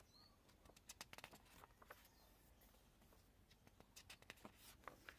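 Faint paper handling: the pages of a zine being turned by hand, with a few soft crinkles and ticks about a second in and again near the end.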